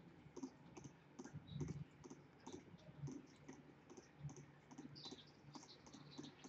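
Faint computer mouse clicks, roughly two a second at an uneven pace, each one placing a point of an embroidery digitizing outline.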